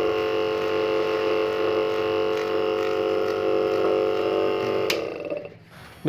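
Refrigerator compressor, freshly fitted with a new copper motor winding, running on the test bench with a steady electric hum while its current draw is checked. The hum cuts off with a click about five seconds in.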